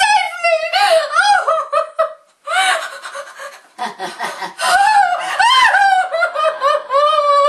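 A woman's high-pitched villainous cackle, laughing in several bouts with a short break about two seconds in.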